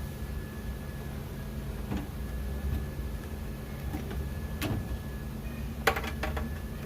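A few sharp clicks and light knocks from the plastic clips and parts of a car door handle assembly being squeezed and worked free, the loudest a quick run of clicks about six seconds in, over a steady low hum.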